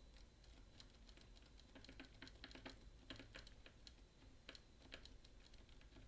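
Faint, irregular small clicks and ticks, several a second, from a magnetic pick and tensioner working a MIWA magnetic camlock under light tension. The magnetic pins click as they are moved.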